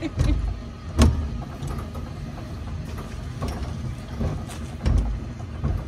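Zoo monorail car running along its track: a steady low rumble with a few knocks, the loudest about a second in.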